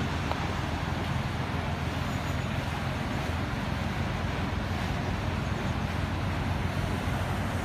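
Canal lock filling through open paddles: a steady rush of water with a low, steady hum underneath.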